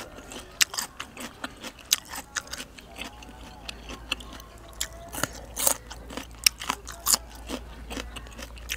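A person chewing crunchy raw vegetables, such as green bitter gourd, with close, loud bites and irregular sharp crunches about once or twice a second.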